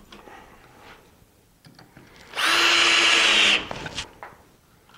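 Ryobi cordless drill running at a steady speed for about a second, about halfway through, with a steady whine that does not change in pitch.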